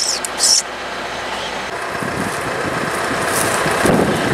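Rustling and footsteps through dry brush and grass, an uneven crunchy noise that grows louder over the second half, after a few short hissing rustles at the very start.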